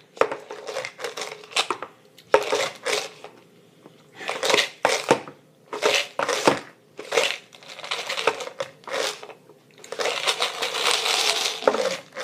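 Close-up handling noise: crinkling and rustling as a hand works an object right at the microphone, in a string of short bursts, then a longer continuous stretch near the end.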